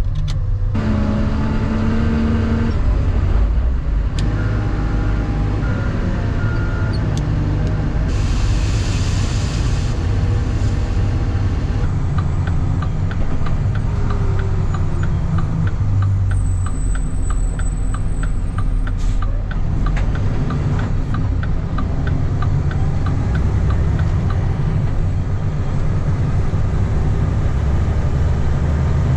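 Mack snowplow truck's diesel engine running steadily with road rumble as it drives on. There is a brief hiss about eight seconds in, and a regular ticking about twice a second through the middle.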